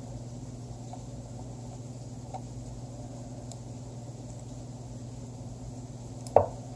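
Lichess online chess move sound from the computer: one sharp wooden click of a piece being placed, near the end, over a steady low electrical hum with a few faint ticks.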